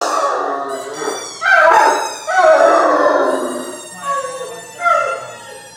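Young harlequin Great Dane howling, set off by his favourite toy: several drawn-out howls that slide down in pitch, loudest in the middle, then shorter, fainter ones near the end.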